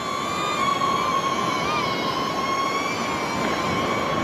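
DJI Neo mini drone's propellers whining at a steady high pitch with a row of overtones, the pitch wavering slightly now and then, over a steady hiss of wind.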